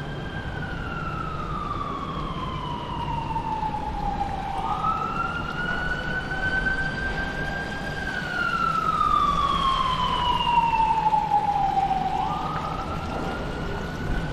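A siren wailing in a slow rise and fall. The pitch climbs quickly, holds high and then sinks slowly over several seconds before climbing again, about one cycle every seven to eight seconds, over a steady low background hum.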